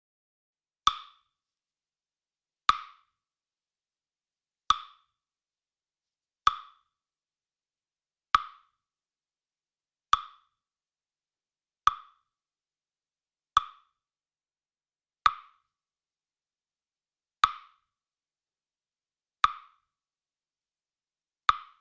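A short, hollow knock sound effect, the same one played twelve times at an even pace of about one every two seconds, each dying away quickly.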